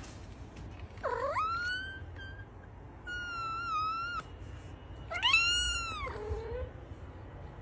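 A long-haired white cat meowing three times, each call about a second long: the first swoops up in pitch, the second wavers at a steady pitch, and the third, the loudest, rises and falls.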